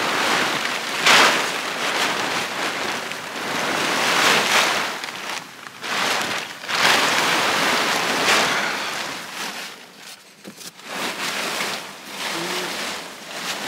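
Plastic tarps rustling and crinkling as they are pulled back and bundled up, in several loud swells with a lull near the end.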